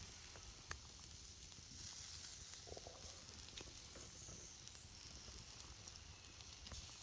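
Faint sizzling of steaks on a grill over a campfire: a steady soft hiss with scattered small crackles and ticks.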